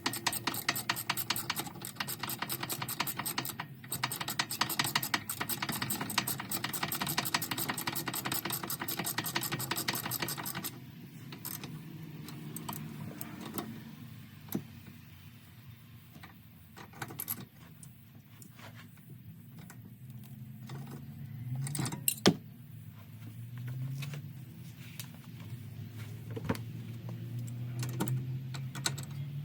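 Ratchet wrench clicking rapidly and steadily for about ten seconds, then stopping. After that come scattered clicks and knocks of tools and parts being handled, with one sharper knock about 22 seconds in.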